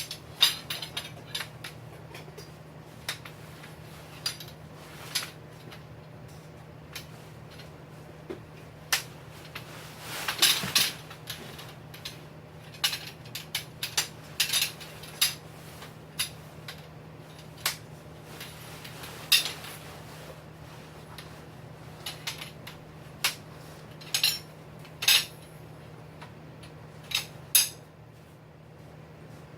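Metal tent poles and fittings clinking and clicking at irregular intervals as the tent is pitched, with a longer scraping rustle about ten seconds in, over a steady low hum.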